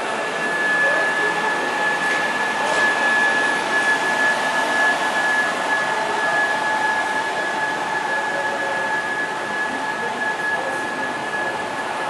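Double-decker passenger train moving slowly past along the platform: a steady rushing noise with a high, steady whine over it.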